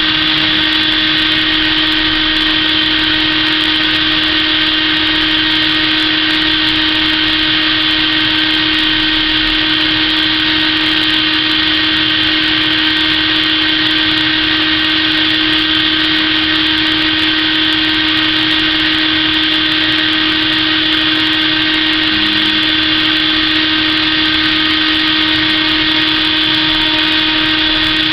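Spindle motor of a 3D printer converted to a CNC router, running at a steady high speed with an even, unchanging whine.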